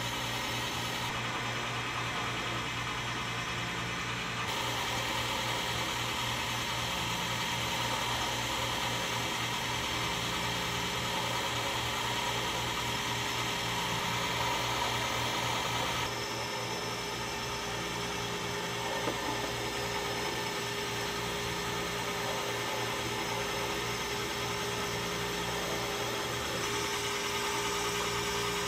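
Bingsu ice-shaving machine running steadily, shaving a rotating block of ice into fine flakes: a steady motor hum under an even hiss.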